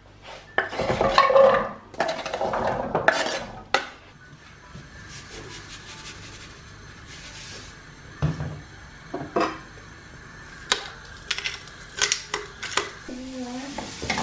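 Diced raw carrots tipped off a wooden board into a non-stick frying pan, the cubes clattering into the pan for about three seconds. After that come scattered light knocks in the pan.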